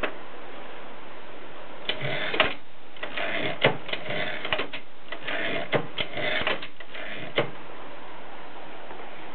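Olivetti 45 typewriter typing: a run of quick clattering strokes and sharp clacks starting about two seconds in and stopping about two seconds before the end, over a steady hiss.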